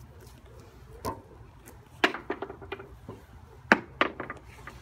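Backyard trampoline being jumped on: a few irregular thumps with short rattles after them, the loudest about two seconds in and again near the end.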